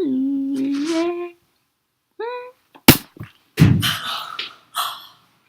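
A person's voice holding a long pitched note, then a brief squeak. About three seconds in comes a loud sharp smack, followed moments later by a heavy thud.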